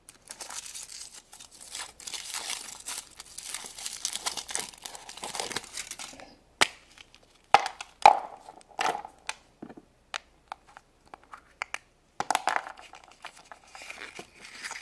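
Thin foil wrapper of a chocolate surprise egg crinkling and tearing as it is peeled off. About halfway through there are sharp snaps and clicks as the chocolate shell and the plastic capsule inside are broken open. Near the end there is more crinkling as a small wrapped packet is opened.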